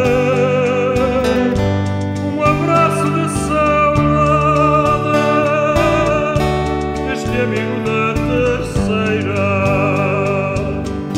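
Music: a song with a voice singing long, wavering held notes over a steady bass line.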